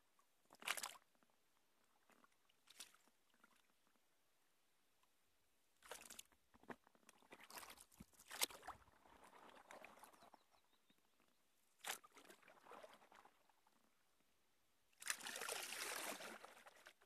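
Kayak paddle dipping into river water: a handful of short, irregular splashes and drips from the blade, with near silence between them and a longer splash lasting about a second and a half near the end.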